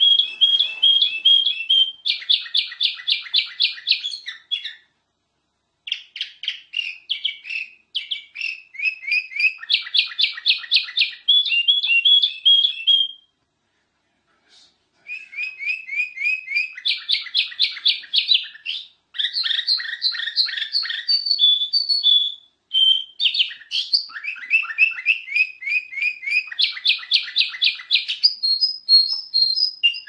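Black-crested bulbul (kutilang emas) singing: long runs of rapid, repeated high chirping notes, broken by short pauses about five seconds in and around thirteen to fifteen seconds in.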